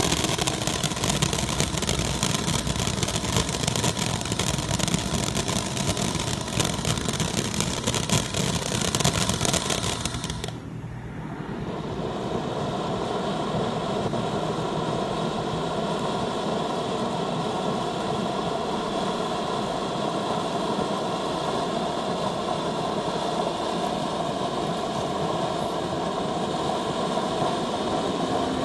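Black Cat Kaboodle firework fountain spraying sparks: a loud, dense hiss with crackling for about ten seconds, then a brief dip and a steadier, softer, duller hiss as the fountain moves into a smaller spray.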